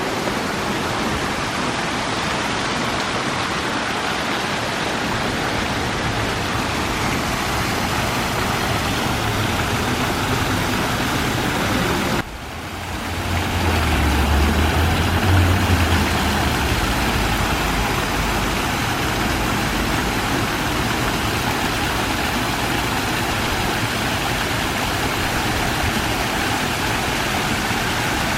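Steady rush of water from a park waterfall fountain. About twelve seconds in the sound breaks off briefly and resumes, with a low rumble standing out for a few seconds after.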